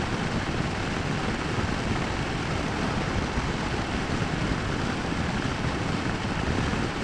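Royal Enfield Meteor 350's single-cylinder engine running at a steady cruising speed, mixed with a steady rush of wind on the microphone.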